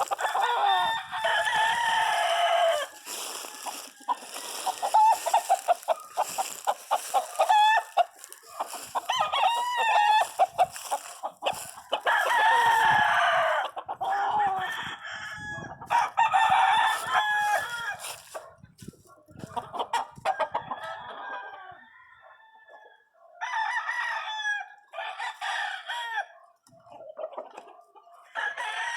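Chickens: roosters crowing again and again, each crow lasting a couple of seconds, with hens clucking in between.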